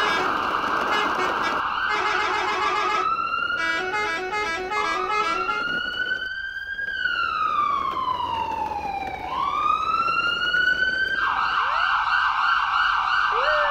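Electronic emergency sirens, layered. A fast warbling yelp runs for the first few seconds, then a single slow wail rises, falls and rises again, and the rapid warble returns about eleven seconds in.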